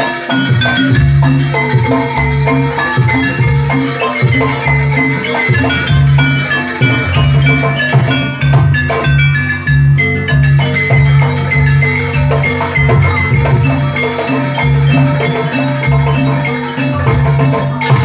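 Javanese jaranan dance music: hand drums and tuned metal percussion play a repeating melody over a steady low beat, loud and continuous.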